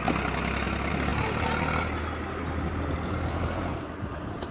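An engine running steadily at an even, low speed, getting a little quieter toward the end.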